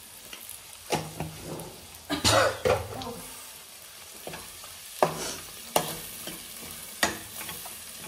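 A steel spoon stirs and scrapes a spiced tomato masala frying in a pressure cooker, over a steady sizzle. It knocks sharply against the pot about six times, loudest a couple of seconds in.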